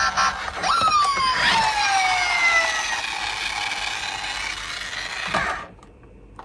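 Toy jeep's electronic sound effect played through its small built-in speaker. Falling tones sweep over a steady hiss, and it cuts off suddenly about five and a half seconds in.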